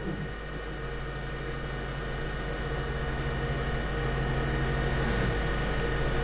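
3D printer printing, its stepper motors giving a steady, tonal hum. The motor tones change pitch about five seconds in as the moves change, and the sound grows slowly louder.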